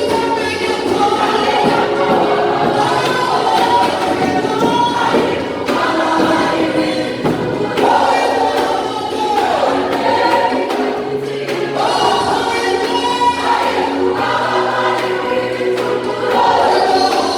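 A choir singing a gospel worship song over instrumental accompaniment with a steady beat and a bass line.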